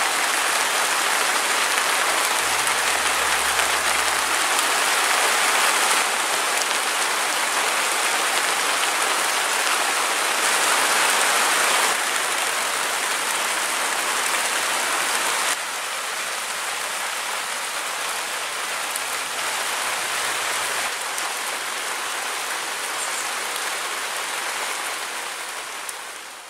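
Steady rain falling, an even hiss of drops, which drops a little in loudness about fifteen seconds in and fades away right at the end.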